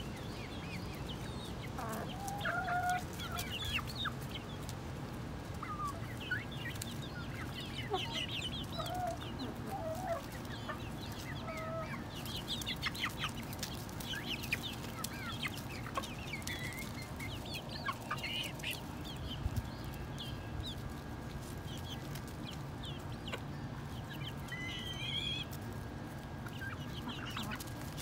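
Flock of young chickens (Australorps, Barred Rocks and Silkies) clucking and giving many short chirping calls while foraging, with scattered short clicks from pecking and scratching in the mulch.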